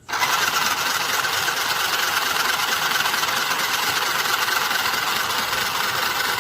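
Small electric motor of a mini portable sewing machine switched on and running steadily with a loud whirring buzz. It starts abruptly.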